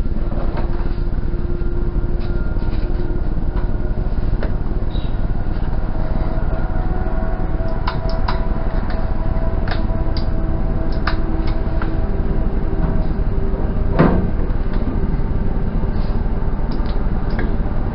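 Stud-welder dent pulling on a steel car tailgate: sharp clicks and knocks from welding studs and pulling them, with a louder snap about fourteen seconds in, over a steady low hum.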